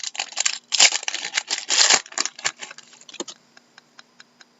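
Trading cards being flipped and shuffled by hand: a quick run of clicks and rustles for about two and a half seconds, then a few scattered clicks that thin out to faint ticks.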